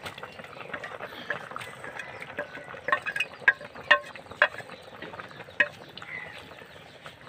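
Wooden spatula stirring a simmering curry in a metal karahi, knocking against the pan in several sharp clicks about three to six seconds in.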